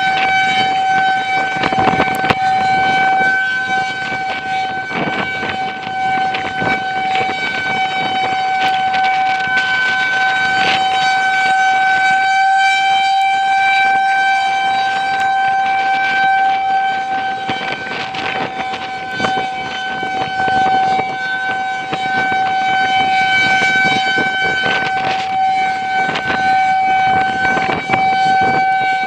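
Federal Signal 2001-130 rotating outdoor warning siren sounding a steady single tone at full speed, loud, its level slowly swelling and fading as it turns. Gusts of wind buffet the microphone throughout.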